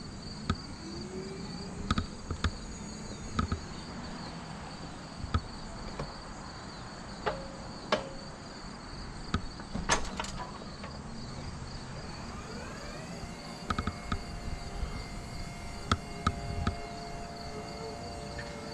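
Steady high insect chirring, like crickets, with scattered sharp clicks and knocks. About two-thirds of the way through, a humming tone rises and then holds steady.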